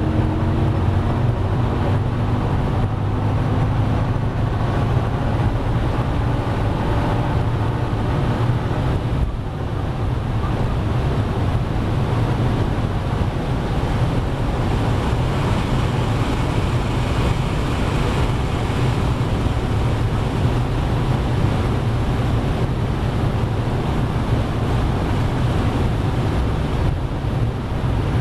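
Inside the cabin of a G-Power twin-supercharged BMW M5 V10 at very high Autobahn speed: the engine pulls hard under heavy wind and road roar, a steady deep din. The level dips briefly about nine seconds in, then the din runs on steadily.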